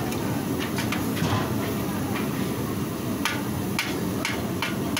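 A slotted metal ladle clicking and knocking against an aluminium pot as jalebi are stirred and scooped out of sugar syrup, several sharp knocks in an uneven run, over a steady low rumble.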